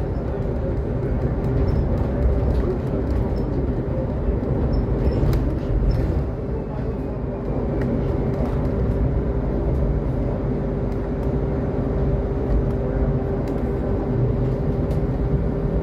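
Solaris Trollino 12 IV trolleybus riding, heard from inside the cabin: steady low road rumble under a steady whine, with scattered clicks and rattles.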